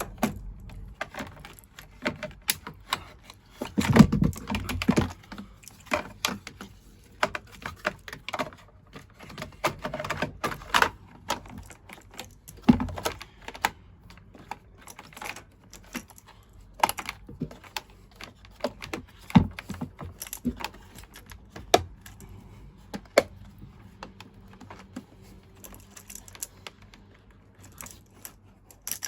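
Irregular clicks, taps and knocks of hands handling tools and plastic and metal parts, with a heavier run of knocks about four seconds in.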